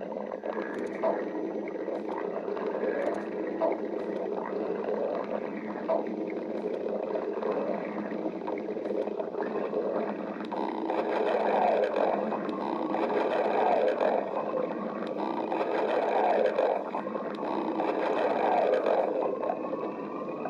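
Stomach growling: a long run of gurgling rumbles, louder and more continuous in the second half, with a drawn-out rising squeal through the latter part.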